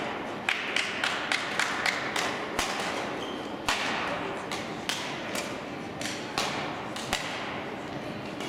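Badminton rackets striking shuttlecocks in a large hall: sharp, echoing smacks, several in quick succession in the first two seconds, then single hits every second or so.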